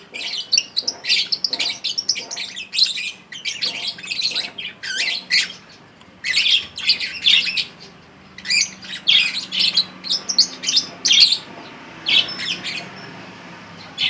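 Juvenile lovebird, about eleven weeks old, chattering in quick runs of short, high chirps as it learns to call. The chirping breaks off near the end.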